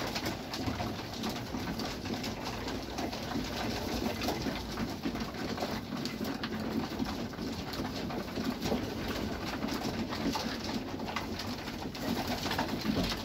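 A flock of male racing pigeons cooing together without a break, with many small clicks of beaks pecking grain from a wooden feeder trough.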